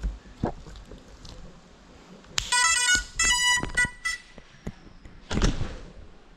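A small FPV drone crashing with a knock, then two loud electronic beep chords of about half a second each from the crashed, upside-down drone, and a short scraping rustle near the end as it is handled.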